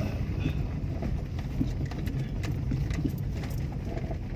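Car driving slowly along a rough dirt track: a steady low rumble of engine and tyres with scattered light knocks and crackles.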